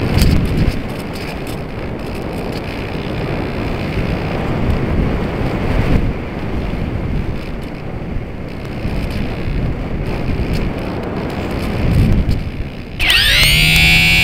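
Rushing airflow buffeting the microphone of an onboard camera on an EasyGlider RC model glider in flight, with a few stronger gusts. About a second before the end, electronic music starts: tones sweep and then settle into a steady chord.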